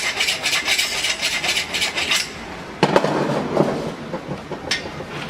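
A hand file rasping in quick back-and-forth strokes on the cut end of a copper refrigerant pipe, deburring it before flaring; the filing stops about two seconds in. It is followed by a short clatter of metal knocks and a single click near the end.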